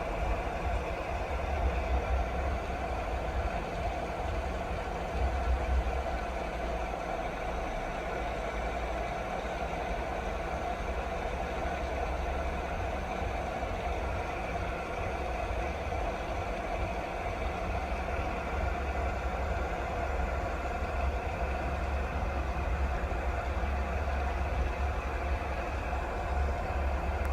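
Steady rain noise, continuous and unchanging, with a constant low rumble underneath.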